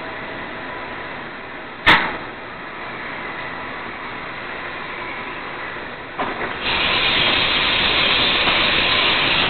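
1997 Haas HS-1R horizontal machining center running with a steady whine. A single sharp clack comes about two seconds in, and a loud hiss starts about six seconds in and cuts off suddenly.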